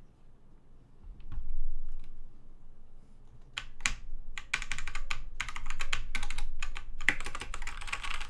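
Typing on a DMK02 budget mechanical keyboard with off-brand red switches: rapid key clacks start about three and a half seconds in and come in dense runs. Before that there are a few faint clicks and a low thud of the board being handled.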